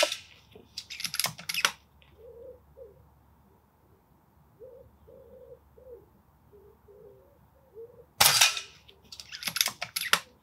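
Two shots from a Daystate Huntsman Revere pre-charged air rifle firing .177 pellets, one right at the start and one about eight seconds in. Each is followed about a second later by a quick run of clicks as the side lever is cycled to load the next pellet from the magazine. A bird calls faintly between the shots.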